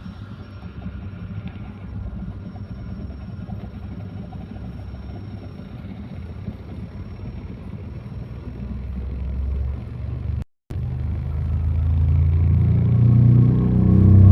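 Deep bass playing through a subwoofer driven by a home-built 2.1 amplifier, growing steadily louder toward the end. The sound cuts out completely for a moment about ten seconds in.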